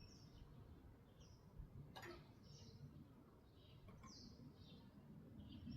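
Faint birds chirping: short, high, falling chirps repeated every second or so over low room tone, with a single soft click about two seconds in.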